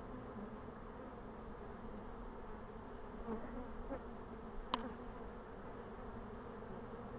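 Honeybees buzzing in a steady hum around an opened hive, with a sharp click a little past the middle.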